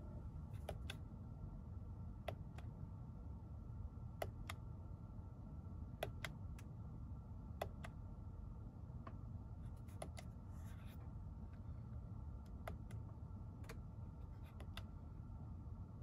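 Sharp, irregular plastic clicks of steering-wheel buttons being pressed to switch the digital instrument cluster's display views, over a low steady cabin hum.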